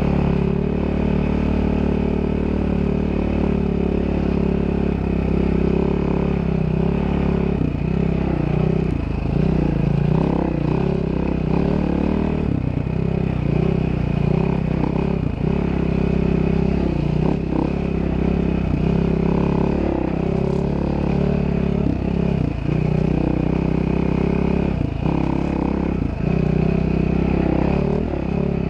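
Dirt bike engine running under way, its pitch rising and falling as the throttle opens and closes, with several brief dips.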